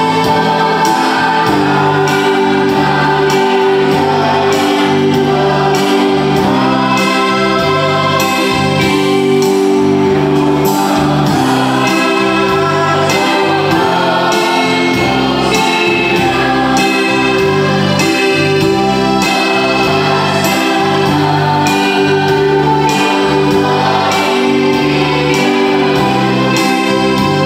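A choir of men and women singing together, with keyboard accompaniment and a steady beat.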